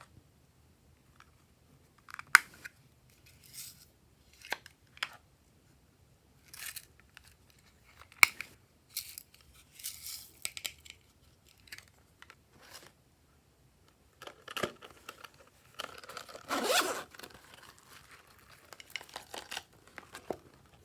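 Glossy slime being handled by hand, making scattered sticky crackles, clicks and tearing sounds as it is stretched and pressed. A longer, denser stretch of crackling comes near the end.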